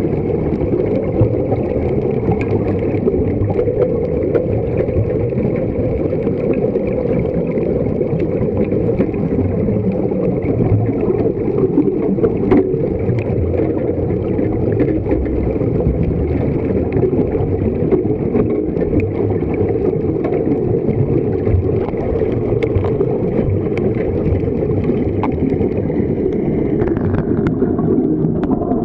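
Steady, muffled underwater rumble heard through a camera's waterproof housing, with faint scattered clicks. Air bubbling out of the surface-fed diving helmets adds to it.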